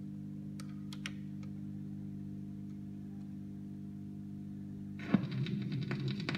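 Braun PC3 tube record player humming steadily with a 45 rpm single spinning on the platter, with a few light clicks about a second in. About five seconds in, the stylus drops onto the record with a sharp click, followed by crackling surface noise from the groove.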